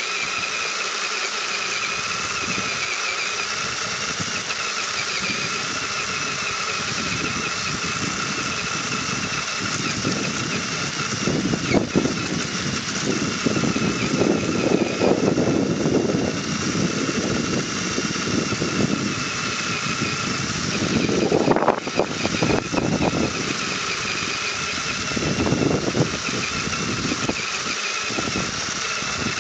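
Electric motor and gear whine of an HPI radio-controlled crawler driving over grass: a steady high whine that wavers slightly in pitch. Louder, rougher noise comes in stretches in the middle and again later.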